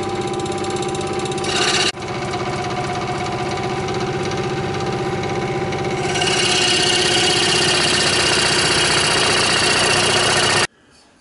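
Scroll saw running, its reciprocating blade cutting a hardwood block, with a steady motor hum and buzz. The sound dips briefly about two seconds in, and from about six seconds in the cutting gets louder, with more high-pitched rasp. It stops suddenly shortly before the end.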